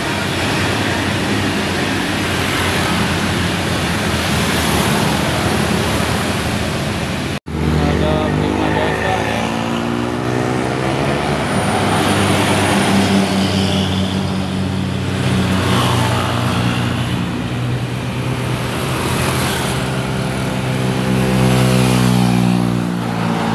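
Heavy diesel road vehicle's engine pulling hard up a steep climb, passing close with a steady pitched drone that bends near the end. The sound cuts out for an instant about seven seconds in.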